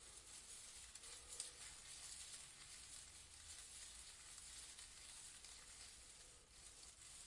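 Faint, steady rustling of leaves in a breeze, with small swells now and then.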